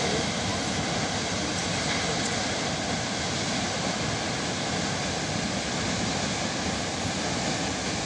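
Steady, even rushing roar of a tall waterfall plunging into a gorge.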